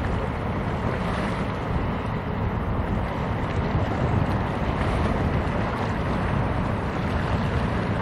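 Wind buffeting the microphone over a steady low rumble from a passing cargo ship and the water of the strait.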